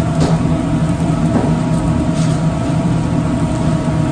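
Steady low drone of a commercial kitchen's gas range with several burners lit, with a few faint clicks on top.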